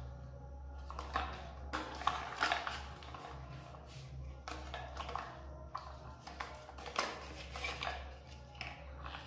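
Plastic toy backhoe loader being handled: its plastic arm, bucket and body clicking and clattering in irregular clacks, over a steady low hum.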